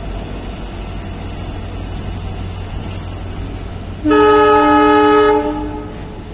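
WDG4 (EMD GT46MAC) diesel locomotive's engine humming steadily, then about four seconds in its air horn sounds one loud blast of about a second and a half before trailing off.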